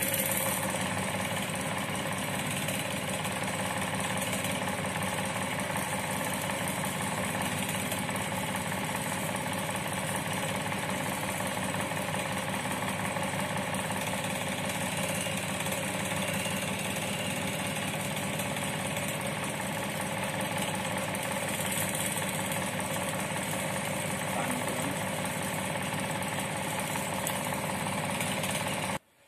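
A steady mechanical drone, like a motor running at a constant speed, which cuts off abruptly near the end.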